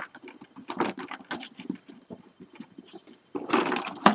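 Rolled paper weaving tubes rustling and scraping against each other as they are woven in and out of the stakes of a paper-tube basket, in irregular strokes. There is a louder stretch near the end and a sharp click just before it ends.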